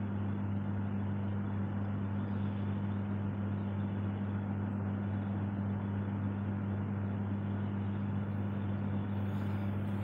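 A steady low hum, unchanging throughout, with a faint even hiss over it.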